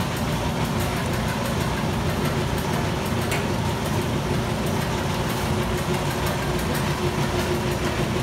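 Honey-extracting equipment running steadily: an even motor hum with a constant low tone and a light mechanical clatter.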